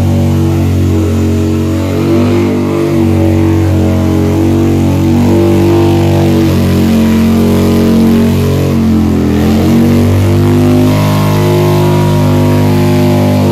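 V-twin motorcycle engine held at high revs during a burnout, with the rear tyre spinning on wet pavement and hissing. About nine seconds in the revs drop briefly and climb back.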